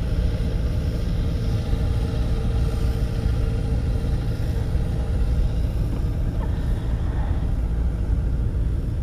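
Steady low engine rumble running throughout, with a faint hum above it that fades out about halfway through.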